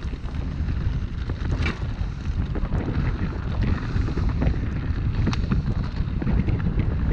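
Wind buffeting the microphone, a steady low rumble, with irregular short knocks and crunches scattered through it.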